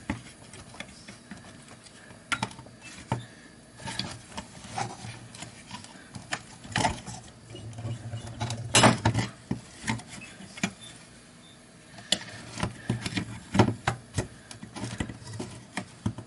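Irregular small clicks, taps and rattles of circuit boards and a plastic timing-light housing being handled and fitted together, with a few louder knocks, the loudest just before nine seconds in.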